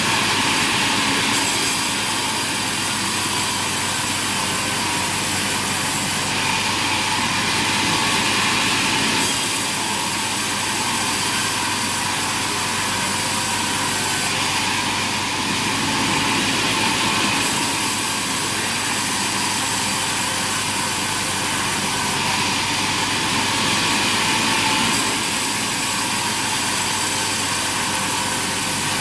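Sawmill machinery running steadily: a constant low hum under a broad mechanical hiss, the hiss changing a little every few seconds.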